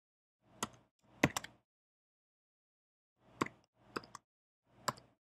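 Computer keyboard typing: a few separate keystroke clicks in two short bunches, one about a second in and another from about three and a half to five seconds in, with silence between.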